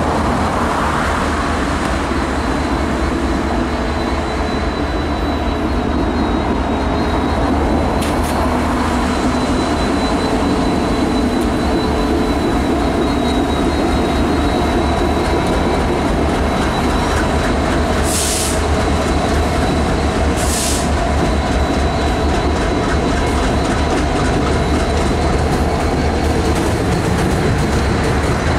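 Norfolk Southern diesel freight locomotives and their train running across a steel girder bridge overhead: a steady loud rumble with a thin high whine. Two short hisses come about 18 and 20 seconds in.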